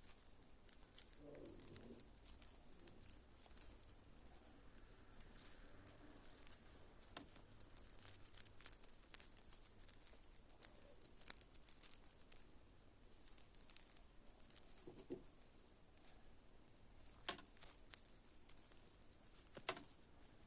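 Chewing-gum slime being squeezed and pulled by hand: faint, scattered sticky clicks and crackles, with a few sharper clicks.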